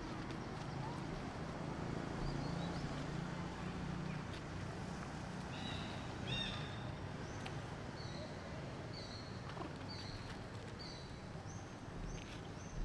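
Outdoor ambience: a steady low hum under a noisy background, with a series of short high chirps repeating from about six seconds in.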